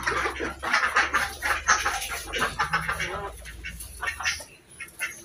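Backyard village ducks and chickens calling: a busy run of short harsh calls that thins out after about three and a half seconds.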